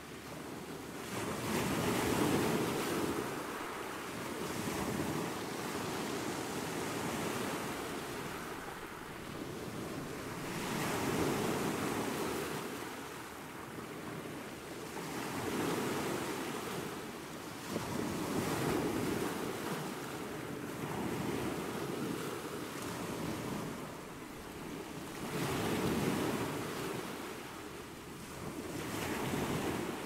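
Small ocean waves breaking and washing up a sandy beach, the surf swelling and fading every few seconds.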